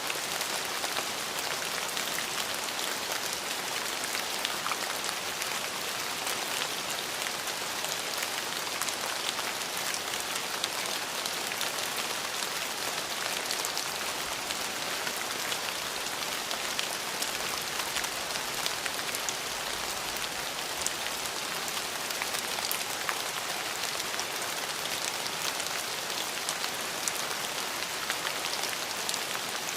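Steady rain falling on a surface, an even hiss with scattered individual drop ticks, unchanging throughout.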